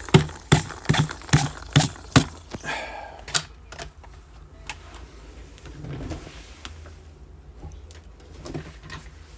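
A quick run of sharp taps or knocks, about two and a half a second, stopping a little over two seconds in. A brief rustle follows, then a few faint clicks of things being handled on a tabletop.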